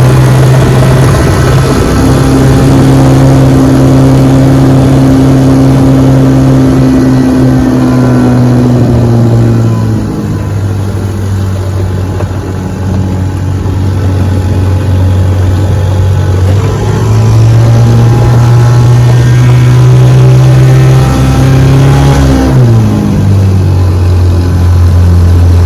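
A restored 1968 Johnson 6 HP two-stroke outboard motor running under way on a small boat. It runs steadily, eases off about ten seconds in, speeds up again about seventeen seconds in, and eases back once more near the end.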